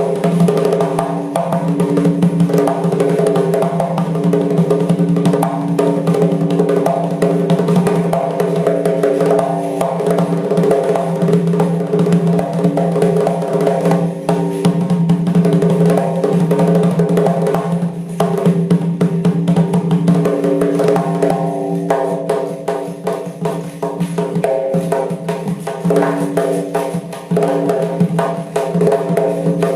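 Doira, the Uzbek frame drum, played in a fast, dense rhythm of strokes over a steady held pitched tone with its overtones, which thins out a little past the middle and then comes back.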